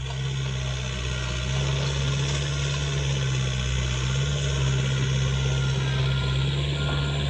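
Komatsu PC45MR mini excavator's diesel engine running steadily up close as the machine works to get out of the mud it sank into; it comes up in level just at the start and then holds.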